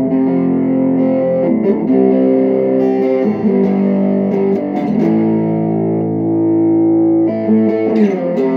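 Tagima electric guitar on its neck pickup, played straight into an amp's distortion channel: a rhythm part of sustained distorted chords changing every second or two, with one chord held longer near the end.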